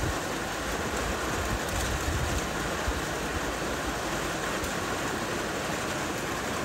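Steady rain falling, an even hiss, with a few low thumps in the first couple of seconds.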